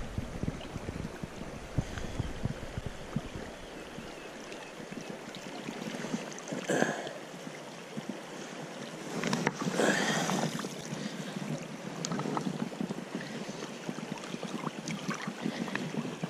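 River water rushing and lapping as a hooked brown trout is played at the surface and netted, with two louder splashes about seven and ten seconds in. Wind rumbles on the microphone in the first few seconds.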